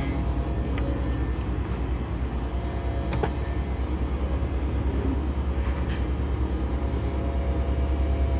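Steady low machine hum and rumble of a dust-extraction vacuum running beside the fossil slab, with a couple of faint ticks.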